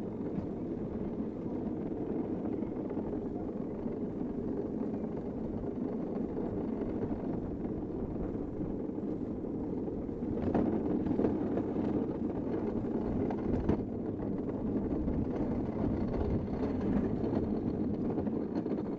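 A downhill gravity kart, which has no engine, rolling fast over an asphalt track: a steady noise of wheels on pavement and wind. It gets louder about ten seconds in, and two short knocks come around that point.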